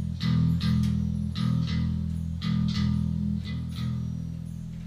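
A rock band rehearsing, with an electric bass playing a moving line of sustained low notes and sharper picked or struck attacks above it. It gets somewhat quieter toward the end.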